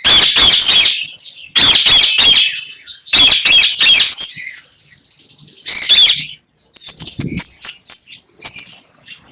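Indian ringneck parakeets calling loudly in repeated bursts of about a second each, then a run of short, quick chirps in the second half.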